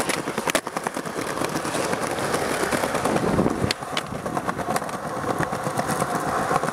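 Skateboard wheels rolling on concrete with a steady rumble. A sharp clack comes about half a second in, and a couple more come a little past the middle as the board flips and hits a concrete ledge.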